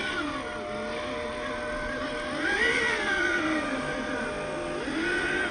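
Electric drive motor and gearbox of a radio-controlled Land Rover Defender whining, the pitch rising and falling as the throttle is worked, with the biggest rise about halfway through.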